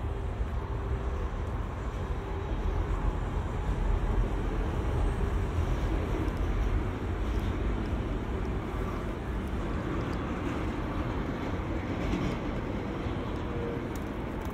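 Low rumble of a passing vehicle, swelling for a few seconds and then easing off.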